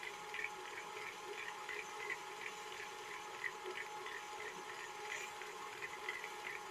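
Electric stand mixer running steadily, its beater creaming butter and sugar in a metal bowl, a low motor hum with faint irregular ticks a few times a second.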